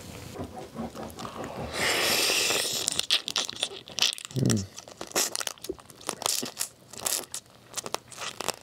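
Crunching, cracking and sucking at the shell of a halved soy-marinated raw blue crab body as it is eaten by hand, a dense run of short crackles from about three seconds on. Before that a loud hiss swells about two seconds in, and a short low hum of the eater's voice comes about four seconds in.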